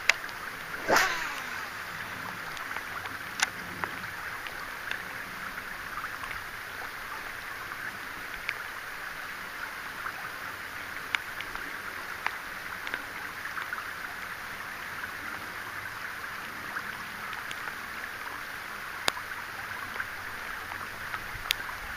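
Steady hiss of falling rain with scattered sharp taps of drops, and one short, louder rush about a second in.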